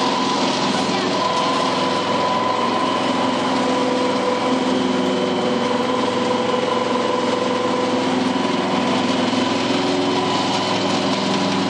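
Small animal-feed pellet mill running steadily while making pellets: a constant mechanical drone with a steady whine held on several fixed pitches.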